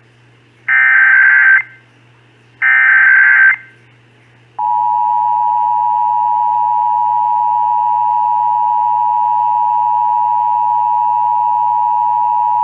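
Emergency Alert System test tones: the last two of the three SAME header data bursts, each about a second long and a second apart. About four and a half seconds in comes the EAS two-tone attention signal, a loud, steady dual tone that marks the start of the alert, here a required monthly test.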